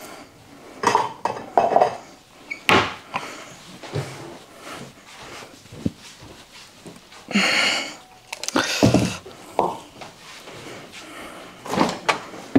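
Kitchen handling sounds: scattered knocks and clatter of things being picked up and set down, with a short hissing rustle a little past the middle.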